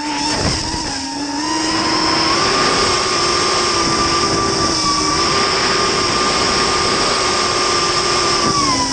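Multirotor drone's motors and propellers whining steadily. The pitch steps up about two seconds in and eases back down near the end as the throttle changes.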